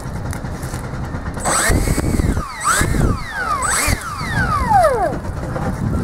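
A 64 mm eight-blade electric ducted fan on a brushless motor whining as it is throttled up and back three times in quick succession, starting about a second and a half in. Each blip makes the pitch climb and drop, and the last one winds down over about a second.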